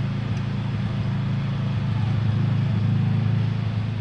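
Lawn mower engine running as it passes by, growing louder a couple of seconds in and then fading as it moves away; a noise called obnoxious.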